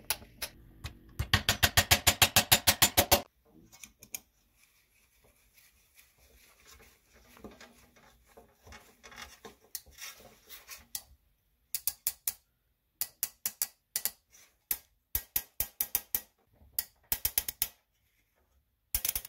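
Screwdriver driving screws into the wooden handle of a handsaw, making bursts of rapid, evenly spaced clicks. The run near the start is the loudest and densest, followed by fainter scattered clicks and then several short bursts toward the end.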